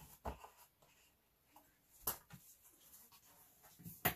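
Handling noise from a portable monitor's cover being fitted and lifted: scattered light rustles and knocks, with sharper knocks about two seconds in and near the end, the last one the loudest.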